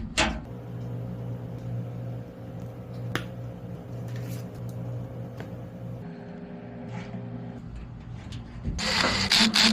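A steady low hum with a few faint clicks, changing in tone about six seconds in and giving way near the end to a louder burst of noise.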